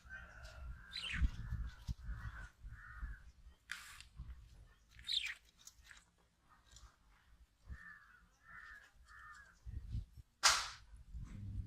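Pet lovebirds calling: a string of short chirps and several harsh, shrill screeches, the loudest about ten and a half seconds in, over a low rumble.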